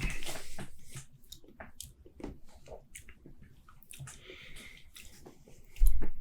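Sipping and swallowing a mouthful of stout, with a slurp at the start followed by small wet mouth and tongue clicks while tasting it. A low thump comes just before the end.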